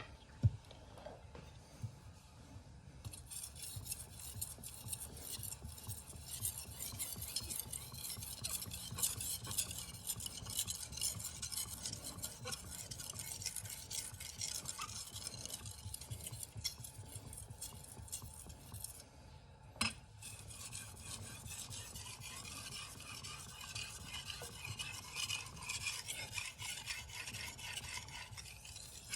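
Damascus steel knife blade stroked repeatedly across a 10,000-grit whetstone, a steady scraping hiss made of many quick strokes. The strokes stop briefly about two-thirds of the way through, with a single sharp click, then resume.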